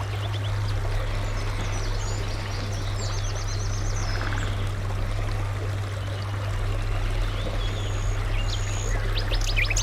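Small birds chirping and trilling over a steady rushing of flowing water, with a low steady hum underneath.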